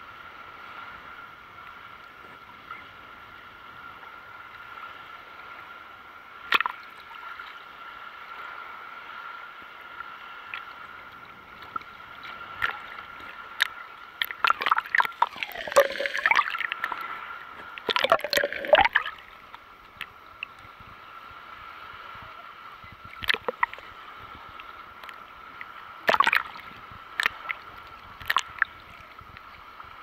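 Sea water sloshing and lapping against a camera at the surface, muffled, with loud gurgling and splashing in the middle as it goes under, and a few short sharp splashes later.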